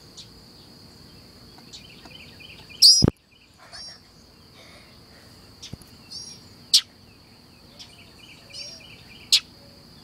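Short, sharp bird chirps repeating every second or two, several of them loud, over a steady high insect drone like crickets. A single loud knock about three seconds in cuts the sound out for a moment.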